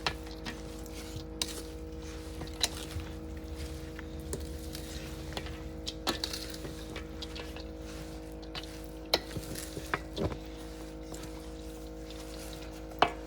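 Scattered sharp clicks and knocks of kitchen utensils and dishes being handled, a few seconds apart, over a steady electrical hum.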